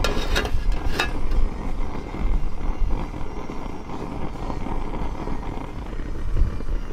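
Wind buffeting the microphone in a steady low rumble, with two short metal clinks about a third of a second and a second in as an aluminium mess tin is set down on a metal camp stove.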